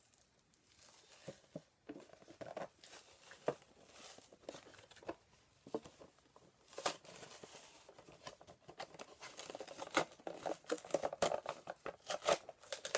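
Clear plastic toy packaging being handled and worked open: irregular crinkling, tearing and clicking of plastic, getting busier in the second half.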